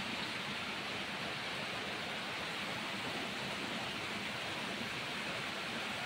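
Steady rain falling: an even, unbroken wash of raindrops at a constant level.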